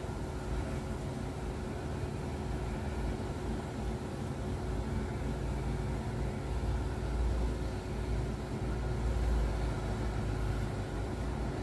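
Steady machinery drone with a deep rumble and a constant hum, swelling a little about seven and nine seconds in.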